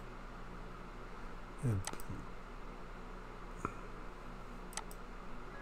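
A few computer mouse clicks, some in quick pairs, as a browser menu is opened to zoom the page, over a steady low electrical hum. A brief vocal murmur comes just before the first clicks.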